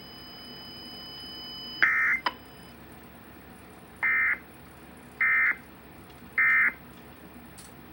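EAS End of Message data tones: three short, identical buzzing SAME data bursts about a second apart, closing the alert. A similar burst with a click comes about two seconds in, before them.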